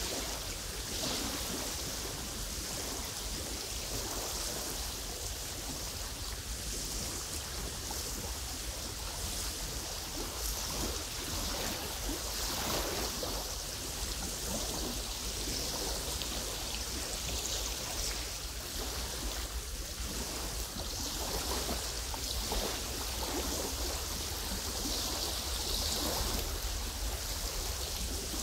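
Small wind-driven waves lapping and washing over a pebbly lakeshore: a steady rippling wash that swells and eases, with a low rumble of wind underneath.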